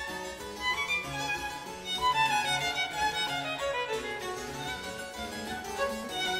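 Instrumental background music, a melody with many short notes and a falling run of notes about halfway through.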